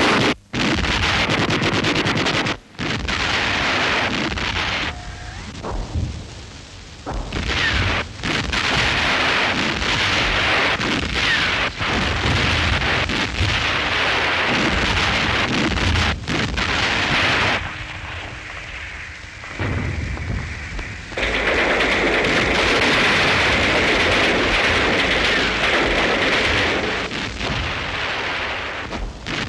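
Battle sounds on an old film soundtrack: a dense crackle of rifle and machine-gun fire mixed with explosions. The noise breaks off and changes abruptly several times, with quieter stretches about five seconds in and again near two-thirds of the way through.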